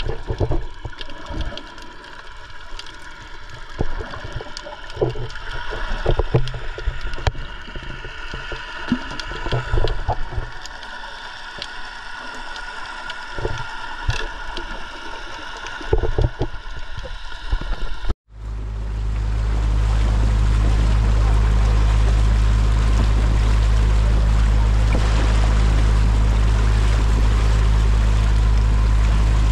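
Boat trip sound with many irregular knocks and splashes over a steady hum. About two-thirds in, the sound cuts out for a moment, and a loud, steady low rumble follows.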